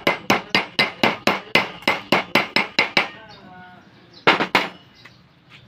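Steel chipping hammer striking fresh weld beads on a steel plate, knocking off the slag: a fast run of sharp metal blows, about five a second, for roughly three seconds, then a few more strikes about four seconds in.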